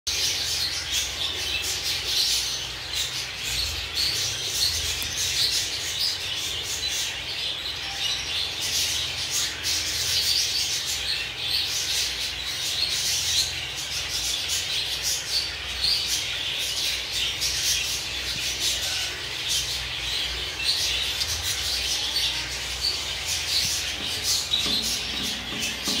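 Budgerigars chirping and chattering in a steady, unbroken stream of short high chirps and clicks.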